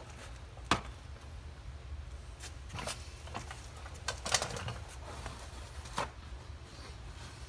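Scattered sharp metal clicks and clinks of hand tools and bolts being handled while unbolting an engine cover, a few separate knocks with a short cluster near the middle, over a steady low hum.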